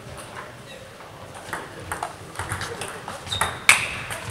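Table tennis rally: the ball clicking off bats and the table in quick, irregular succession, with the loudest, sharpest hit near the end.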